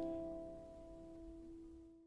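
Background acoustic guitar music fading out, its last chord ringing away.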